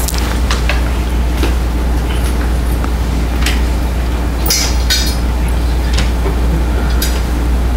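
A steady low hum, with scattered light clicks and a brief clinking cluster about four and a half seconds in.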